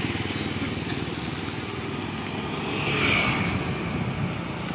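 Steady low rumble of riding along a road, with a motorcycle passing that swells and fades about three seconds in.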